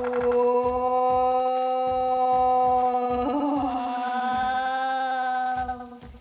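A voice holding one long, steady sung note for about six seconds, with a small shift in pitch about halfway through, over faint low thuds.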